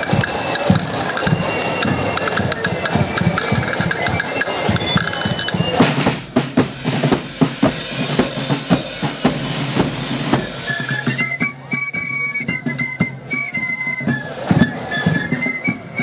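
Marching flute band playing: high flutes carry a melody over snare drums and a bass drum beating time. The drum strokes come to the fore about six seconds in.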